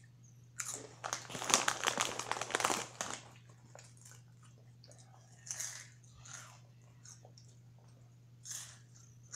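Close-up crunching and chewing of Cheetos: a dense run of crunches for about two and a half seconds near the start, then a few scattered crunches later.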